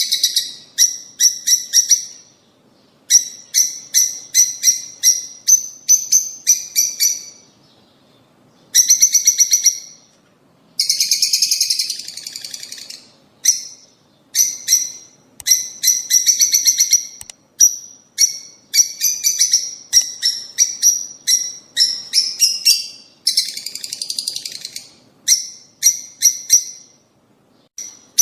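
Lovebirds chattering: rapid runs of shrill chirps in bursts of a second or two, broken by short pauses.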